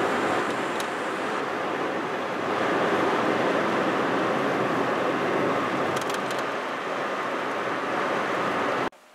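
Steady rushing road and wind noise of a car driving, heard from inside the car; it cuts off suddenly near the end.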